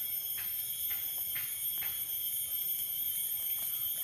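Steady high-pitched insect chorus, typical of cicadas in tropical woodland, made of several unbroken shrill tones. Four faint short clicks come in the first two seconds.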